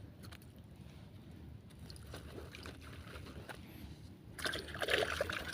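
Water sloshing and splashing with a few small knocks, then a louder burst of splashing lasting about a second near the end.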